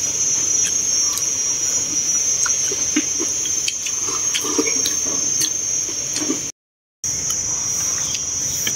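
A steady, high-pitched insect drone from a chorus of insects, with faint clicks of chopsticks on porcelain rice bowls. The sound cuts out completely for about half a second near the end, then resumes.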